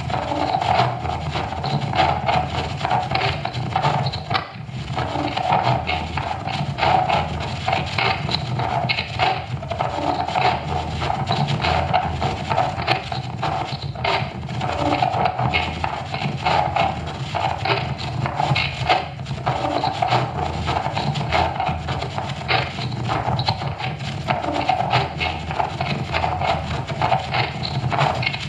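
Experimental electronic noise music: a dense, continuous grinding texture of rapid clicks and crackle over a low drone, with no steady beat.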